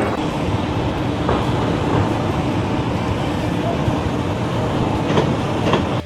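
A steady, low mechanical rumble with a rattling texture, like heavy rolling machinery.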